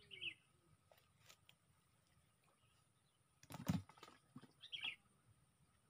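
Two short, high bird chirps, one near the start and one about five seconds in, over a very quiet outdoor background. About three and a half seconds in there is a brief, louder burst of handling noise close to the microphone.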